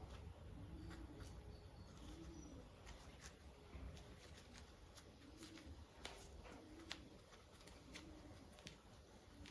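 Faint pigeon cooing, a low rising-and-falling coo repeated roughly once a second, with scattered light clicks and taps from handling small parts.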